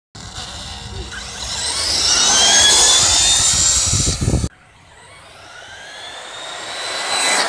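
Electric RC short-course trucks accelerating flat out, their motors and drivetrains whining higher in pitch as they gather speed. The sound cuts off abruptly about four and a half seconds in, and a second rising whine follows, growing louder to its peak near the end as the trucks close in.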